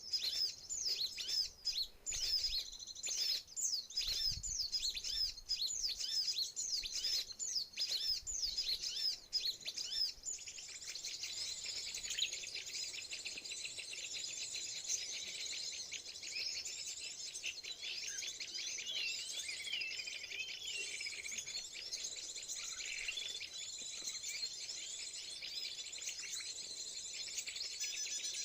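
Small birds chirping: quick, repeated high chirps for about the first ten seconds, then a dense, steady chorus of many small birds calling together.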